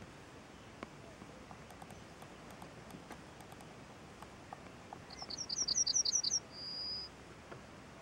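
A small songbird sings one short, high phrase about five seconds in: a quick run of about eight repeated notes, then a single held whistle.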